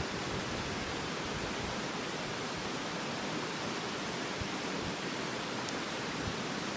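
Steady rushing of a stream or river, with a few faint ticks.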